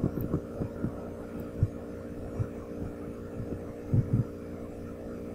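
Steady low hum with a few soft, low thumps, a close pair of them about four seconds in.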